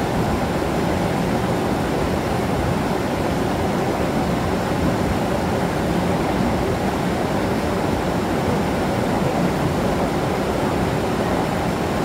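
A waterfall rushing steadily: a constant, unbroken noise of falling water.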